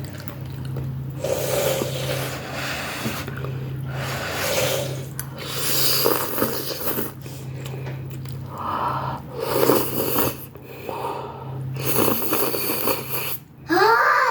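Noodles being slurped and chewed from a bowl of beef noodle soup, a run of wet slurps about one every second or two, over a steady low hum.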